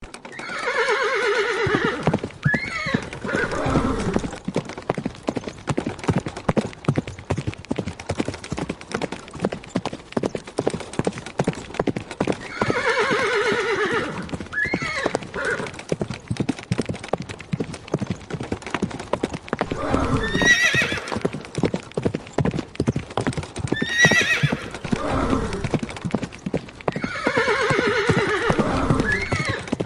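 A horse galloping, its hoofbeats rapid and continuous, with the horse whinnying five times: near the start, near the middle, twice in the second half and again near the end.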